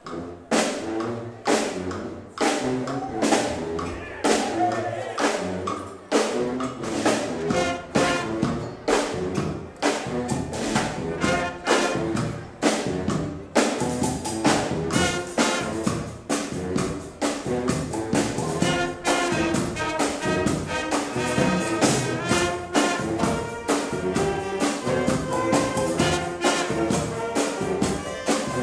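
Brass band music, a march with a steady beat about twice a second; about halfway through, more instruments come in and the sound fills out.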